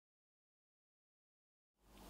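Silence: the soundtrack is blank at an edit, with no sound at all.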